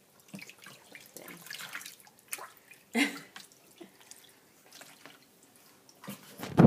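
Water splashing and dripping in a plastic baby bath as water is poured from a small cup over a baby's head, with a louder splash about three seconds in. A loud thump near the end.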